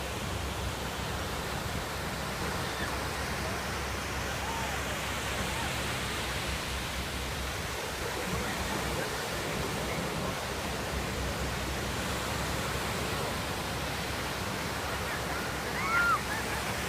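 Steady rush of ocean surf on the beach, with a brief high call near the end.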